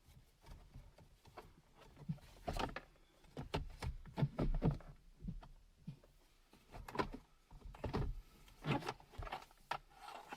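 Irregular clicks and knocks of hard plastic interior trim being handled and worked loose, in small clusters a few seconds apart.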